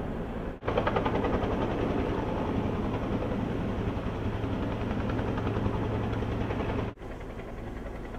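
A steady low engine rumble with a fast flutter. It cuts out for a moment twice, at edits, and is a little quieter after the second break.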